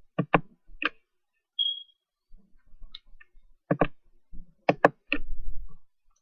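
Computer mouse clicks picked up by the microphone, several coming in quick pairs like double-clicks, with a brief short beep about a second and a half in.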